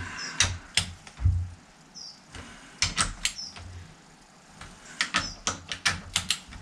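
Socket wrench ratcheting on a Fordson Major's cylinder head bolts: short runs of sharp clicks, bunched more closely near the end, with a few dull knocks of the tool on the engine early on.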